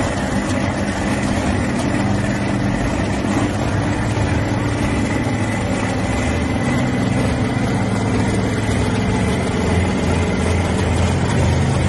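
A heavy engine idling steadily, with a thin, steady whine above its low hum.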